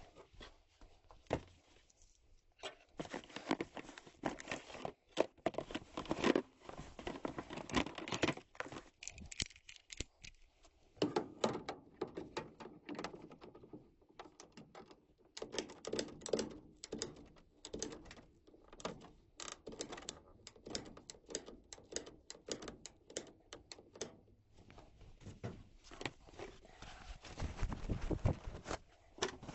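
Irregular metallic clicking, tapping and rattling of hand tools and furnace parts being handled during disassembly of a gas furnace, coming in busy clusters with short pauses and a heavier run of knocks near the end.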